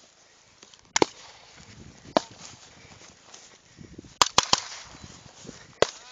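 Scattered rifle shots from AR-15-type rifles: one about a second in, another a second later, a quick run of three about four seconds in, and one more near the end.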